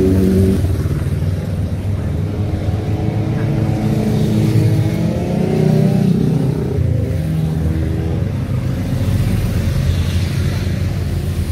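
A stream of motorcycles riding past among car traffic, engines running loud, with a couple of bikes revving up and rising in pitch about halfway through.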